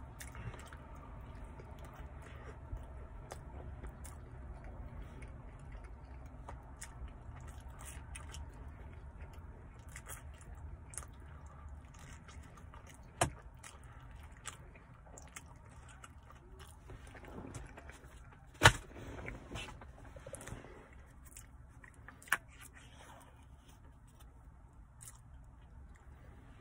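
Close-up chewing of pizza crust, with small wet mouth clicks and smacks over a low rumble. Three sharp, louder snaps stand out: one about halfway, the loudest a few seconds later, and a last one soon after.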